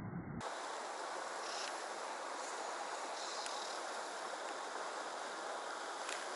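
Shallow river current running steadily, with a few faint clicks.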